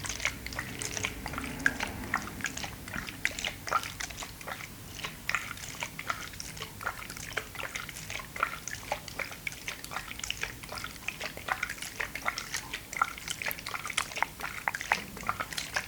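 Close-miked wet clicking and smacking, many small irregular clicks a second, as of water being handled up close for ASMR.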